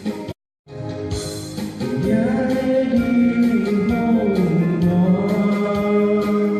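A song sung over instrumental backing music with a steady beat. Just after the start the sound cuts out completely for about a quarter of a second.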